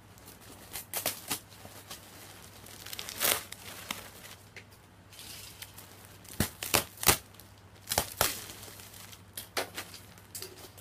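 A bale of second-hand long-sleeve T-shirts being torn open and handled: a string of short, sharp tearing and crinkling noises, loudest a little past the middle.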